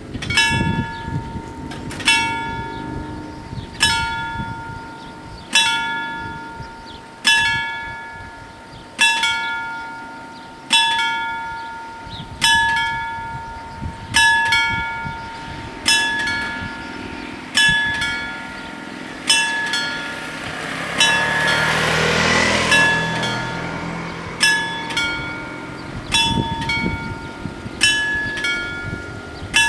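An Italian FS 64 level-crossing warning bell strikes a single ringing tone about every second and three-quarters, warning that a train is approaching. About three-quarters of the way in, a rushing noise swells and fades under the strikes.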